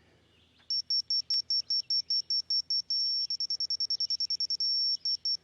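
Laser level receiver beeping: a high-pitched electronic beep starts about a second in, pulsing about six times a second, then quickens until it nearly merges into a steady tone before breaking back into fast beeps. This is the receiver signalling that it is closing on the laser's grade line while the ground height is checked.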